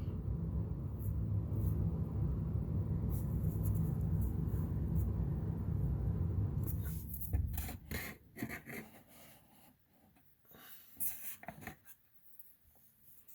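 Trading cards and wax-pack wrapper being handled and rubbed, over a low steady rumble for about the first seven seconds. After that the sound drops to scattered light rustles and taps.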